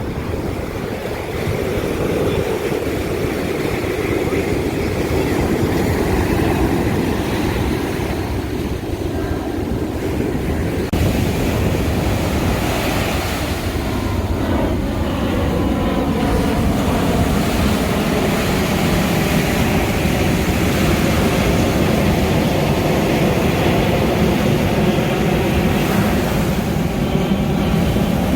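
Steady rushing noise of a car driving along a beach road, with wind and surf mixed in. A faint tone drifts in pitch around the middle and again near the end.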